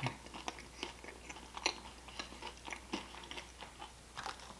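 A person chewing food close to the microphone, with soft, irregular crunches and mouth clicks.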